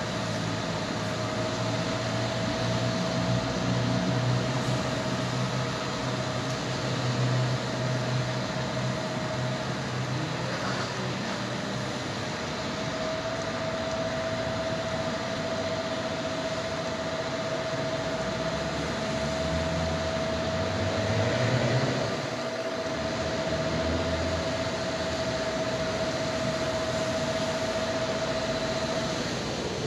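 Street-watering truck at work: its engine and pump run steadily under the hiss of the water jet, with a steady high hum held throughout. The low rumble swells and shifts a little over twenty seconds in.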